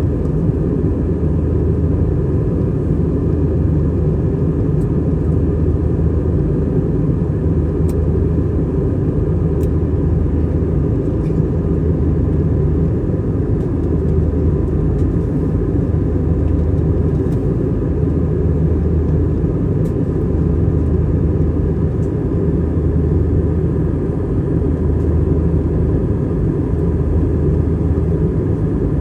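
Airbus A320 jet engines running steadily, heard inside the cabin as a loud, even rumble with a low throb that swells and fades about every two seconds.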